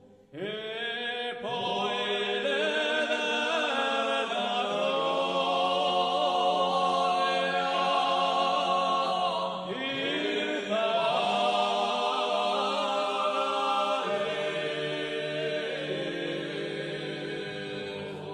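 Voices singing a slow chant in harmony without instruments, over a low held note. A new phrase begins just after the start and again about ten seconds in.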